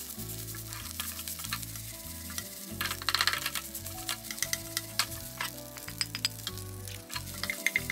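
Shrimp fried rice sizzling in a hot pan while it is stirred, with the utensil scraping and clicking against the pan. A dense burst of scraping comes about three seconds in, and a quick run of metallic clinks comes near the end.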